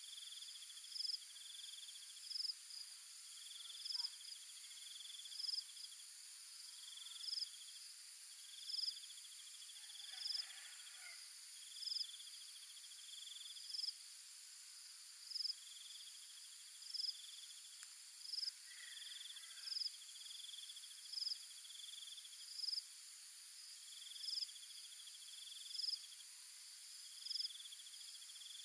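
Insects chirping in a steady, regular pattern. A short high chirp comes about every second and a half, alternating with longer pulsing trills, over a constant high-pitched insect hum.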